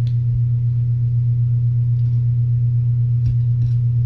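A loud, steady low hum with no change in pitch, and a few faint clicks in the second half.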